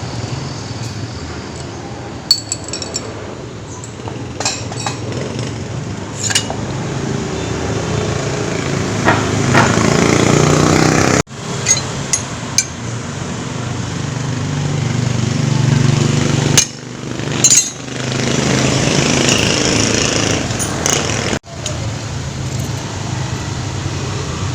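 Metal tools clinking and knocking against scooter engine parts during engine removal: scattered sharp taps over a steady low hum.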